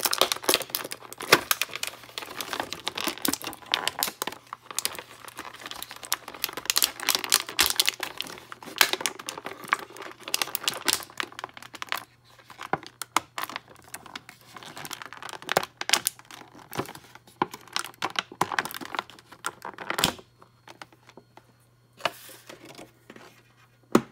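Thin clear plastic packaging crinkling and crackling as hands work an action figure out of its bag, with tearing sounds. The crackling is dense for the first half, then comes in scattered bursts with short pauses.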